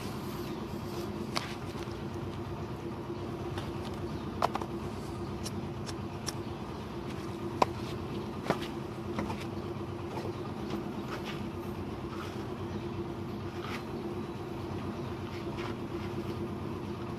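A steady mechanical hum runs throughout. Over it come scattered sharp clicks and knocks of fired clay bricks being handled at a bricklaying site, the loudest about four and a half seconds and seven and a half seconds in.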